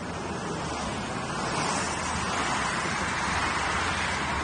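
Road traffic passing on a wet road: a steady hiss of tyres that swells about a second and a half in.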